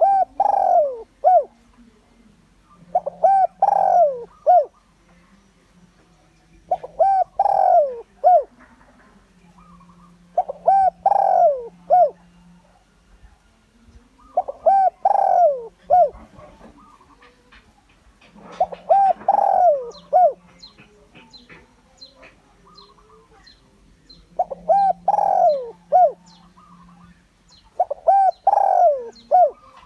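A spotted dove cooing its repeated three-to-four-note phrase, about once every four seconds, eight times, with a longer pause a little past the middle.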